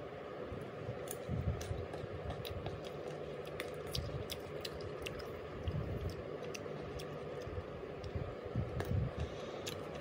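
Metal spoon clicking against a ceramic bowl while scooping thick sweet fish sauce onto green mango slices: many small, irregular clicks over a steady background hum.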